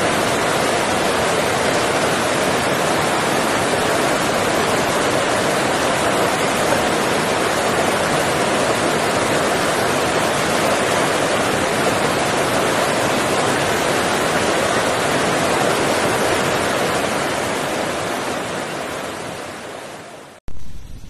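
Steady, even rushing noise with no distinct events, fading away over the last few seconds and then cutting off abruptly.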